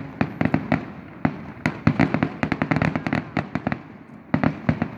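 Fireworks finale: a rapid volley of sharp bangs and cracks, many per second for about four seconds, a short pause, then a few more bangs near the end.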